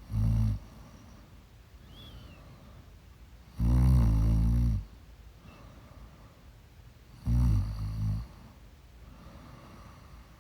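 A woman snoring in her sleep: three loud snores about three and a half seconds apart, the middle one the longest, with quieter breaths between.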